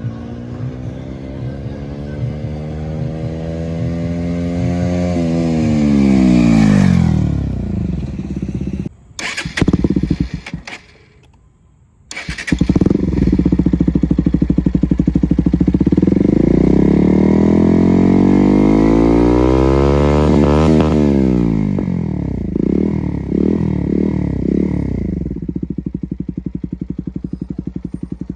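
Bajaj Pulsar NS160 single-cylinder engine through an aftermarket SC Project full-system exhaust. First the bike rides past, its pitch climbing and then dropping away as it goes by. After a short break, close to the muffler, it is revved up and down once, then blipped several times in quick succession, and settles to a steady idle near the end.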